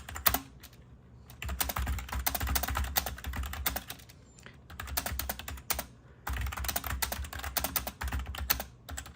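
Fast typing on an OLYGIVE 68-key membrane gaming keyboard: dense runs of key clicks in several bursts, broken by short pauses about a second in, around four seconds in and about six seconds in.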